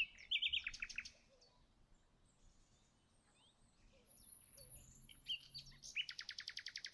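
Faint bird chirping: a few quick, falling chirps at the start, then a rapid, even trill near the end.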